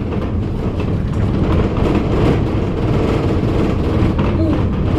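Heritage bus's engine and road rumble heard from inside the passenger cabin: a steady, loud, low drone.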